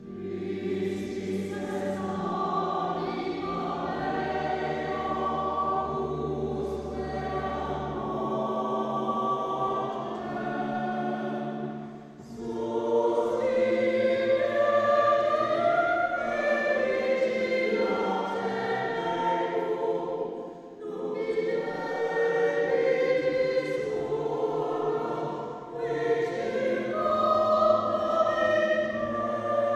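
Choir singing a hymn in long phrases with short breaks between them, over a low held note during the first eight seconds or so.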